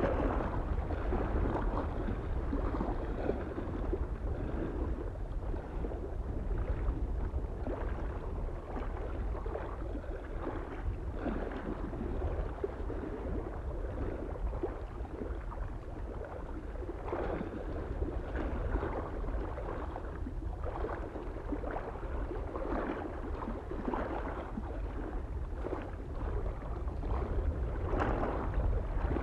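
Small waves lapping irregularly against a lake shore, with a steady low wind rumble on the microphone underneath.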